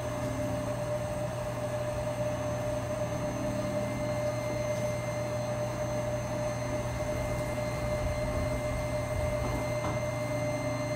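A steady machine hum with one constant, fairly high tone over a hiss, unchanging throughout.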